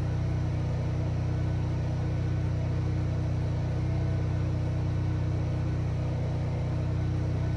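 Backup generator running steadily, heard indoors as a constant low engine hum during a power outage.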